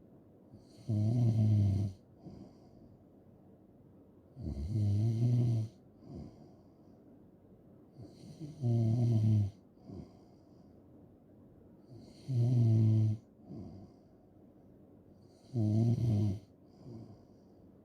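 A person snoring in a slow, even rhythm: five snores, each about a second long, coming roughly every three and a half to four seconds, each followed by a brief fainter sound.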